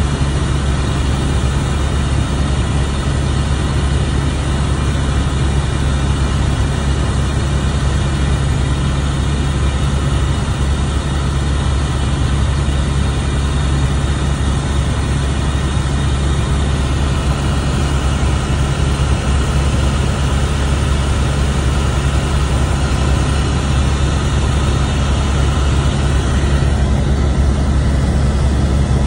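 Helicopter in flight heard from inside the cabin: a steady, loud drone of engine and rotor, with a strong low hum.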